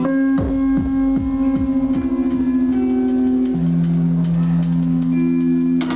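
Electronic hip-hop beat played live on a Native Instruments Maschine pad controller: held synth notes over a deep bass. Quick falling-pitch drum hits come about two or three a second in the first two seconds, and a lower held bass note enters about three and a half seconds in.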